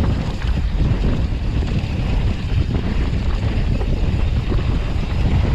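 Wind buffeting the microphone of a mountain bike rider's camera on a fast descent, with rumble and rattle from the tyres and bike on the trail.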